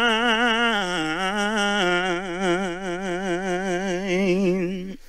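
A man singing unaccompanied into a microphone, holding one long note with wide, even vibrato for nearly five seconds, the pitch dipping slightly about a second in, before breaking off just before the end.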